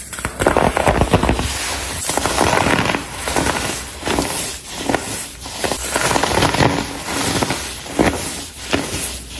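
Crunchy blocks of compressed baking soda being crushed, a dense crackling crunch in repeated squeezes, one every second or two.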